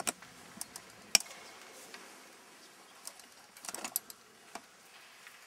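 Faint room tone broken by a few sharp little clicks and knocks: the loudest about a second in, and a quick cluster of them near four seconds.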